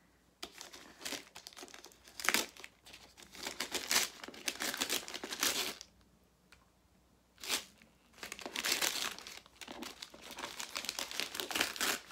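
Glittery metallic wrapping paper being torn and crinkled off a gift box in irregular bursts. It goes quiet for a moment a little past the middle, broken by one sharp tear, then the crinkling picks up again.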